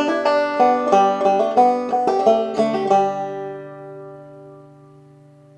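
Five-string banjo played clawhammer style: a quick run of plucked notes, several a second, ending about three seconds in on a final chord that rings and slowly fades.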